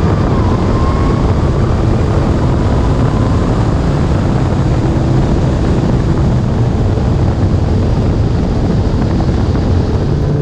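Loud, steady rush of wind and road noise from a car at speed, with an engine drone underneath.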